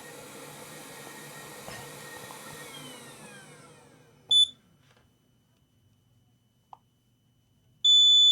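Hot-air rework station's airflow fading out over the first four seconds, then a short high multimeter beep. Near the end the meter's continuity beeper sounds a steady high tone as the probes land on a shorted rail reading about 0.3 ohms.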